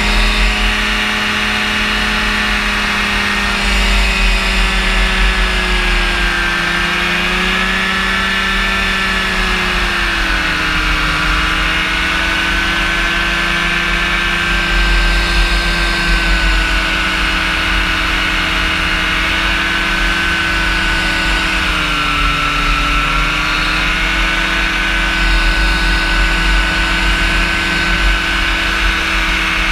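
Rotax engine and propeller of a powered parachute running steadily in flight, with the pitch dipping slightly a few times: around 6 s, near 10 s, near 22 s and near the end. Wind rumbles on the microphone underneath.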